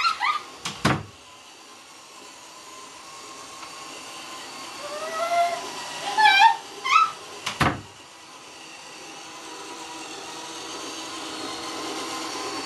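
iRobot Roomba robot vacuum running on carpet, its steady whir growing louder through the second half as it comes closer. Sharp knocks sound twice in the first second and once about two-thirds in, and short high squeals and whimpers come from a person in the middle.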